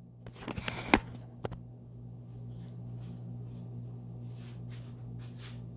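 Handling noise as the camera is moved and set in place: a few knocks and clicks in the first second and a half, the sharpest about a second in, then soft rustling over a steady low hum.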